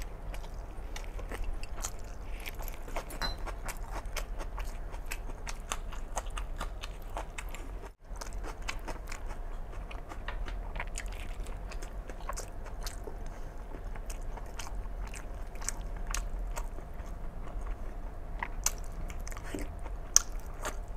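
Close-miked chewing and wet mouth clicks of a man eating mutton curry and rice with his fingers, cut off for an instant about eight seconds in.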